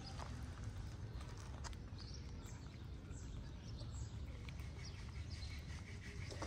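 Two cats eating chunky cat food from plastic trays, with soft, irregular chewing clicks and smacks over a low outdoor rumble. A few faint bird chirps come in near the middle.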